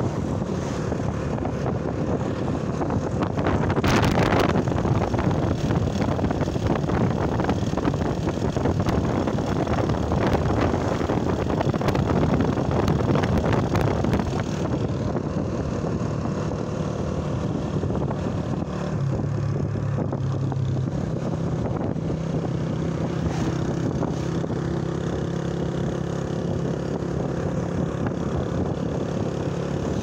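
A vehicle driving along, its engine running under wind rush on the microphone. The wind is louder and gustier in the first half, with one sharp buffet about four seconds in; after that a steadier engine hum comes through.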